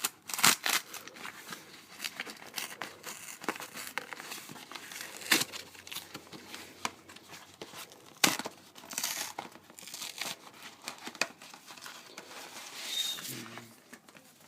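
A mailed package being opened by hand: packaging crinkling and tearing in irregular handling noises, with a few sharper snaps, about half a second in, at around five seconds and at around eight seconds.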